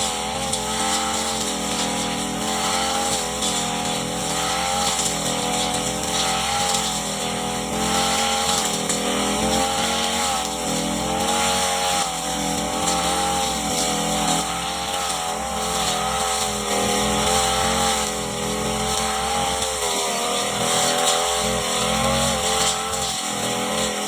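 Brush cutter's small petrol engine running at high speed while cutting grass, its pitch wavering slightly up and down as the load changes.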